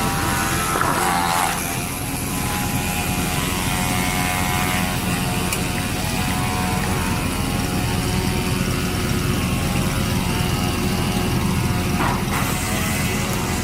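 Borewell drilling rig's engine running at a steady speed, a continuous loud mechanical drone with a brief higher sweep about a second in.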